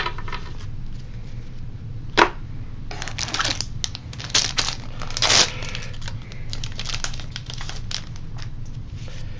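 Foil booster-pack wrapper crinkling and being torn open, in a run of short bursts, with a sharp crackle about two seconds in and the loudest crinkling near five seconds in.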